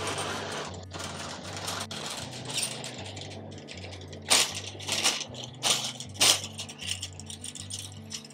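A metal shopping cart being pulled free of a nested row and wheeled off, with several sharp rattling clanks about halfway through. Background music with a low bass line plays throughout.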